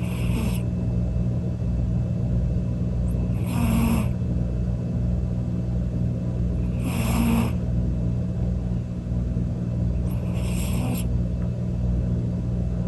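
Domestic cat snoring: a steady low rumble with a breathy hiss on each breath, about every three and a half seconds, four times.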